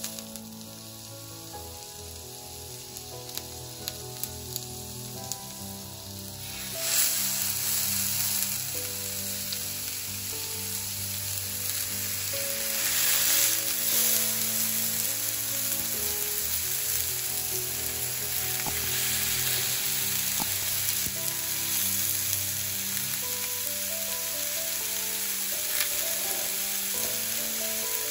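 Meat kebab skewers sizzling on a hot oiled cast-iron griddle plate; the sizzle becomes much louder about seven seconds in and stays steady. Soft background music runs underneath.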